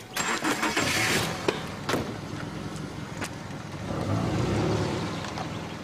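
A car door shutting with a couple of sharp knocks, then the car's engine running with a low rumble that swells about four seconds in.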